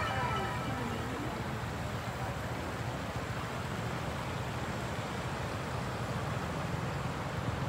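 Steady low rumble and hiss of a moving vehicle, heard from on board as it travels downhill.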